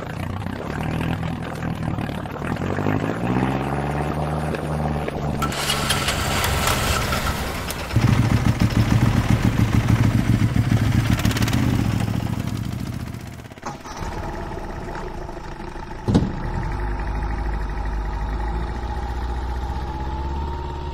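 Boat engine running, its pitch rising over the first few seconds, then chugging loudly for several seconds. After a sharp knock, an auto-rickshaw engine idles with a steady low hum.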